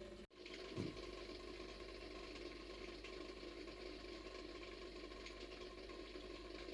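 A steady, low mechanical hum with a few steady tones, cut off for an instant just after the start, with one short soft thump about a second in.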